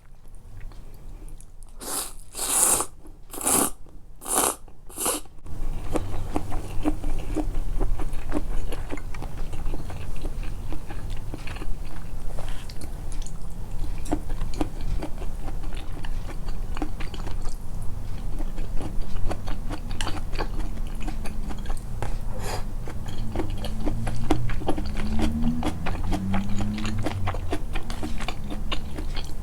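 Close-miked chewing of food, deliberately amplified: about five short, loud bursts of noise in quick succession a couple of seconds in, then steady chewing full of dense small clicks and crunches.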